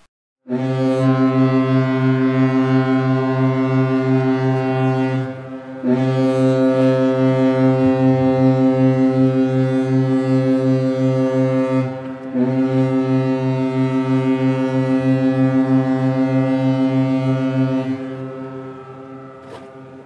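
Cruise ship horn sounding three long, steady blasts of about five seconds each, the last one trailing off.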